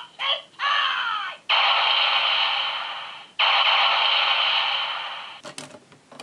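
Electronic sound effects from a Kyoryuger Jyudenchi capsule toy's sound chip, played through its tiny speaker, which makes them thin and tinny. A short warbling sweep comes first, then two long noisy blasts of about two seconds each, the second fading out. A few sharp plastic clicks follow near the end.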